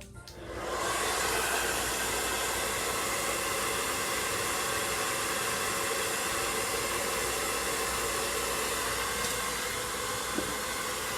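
Hand-held blow dryer switching on about half a second in, then running steadily with an even hiss.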